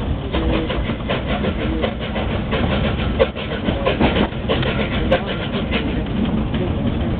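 Steam tram running, heard from its top deck: a steady low rumble with a quick run of clacks through the middle.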